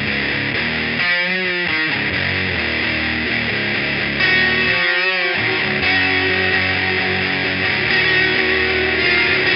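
Heavily distorted electric guitar playing a thick riff through overdrive and fuzz pedals, with wavering bent notes twice: about a second in and again around five seconds in.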